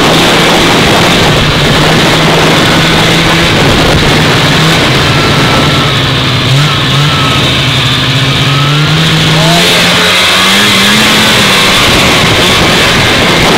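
Vintage two-stroke snowmobile engine running under way, its pitch mostly steady with a few shifts and a climb about ten seconds in, over a loud rush of track and wind noise.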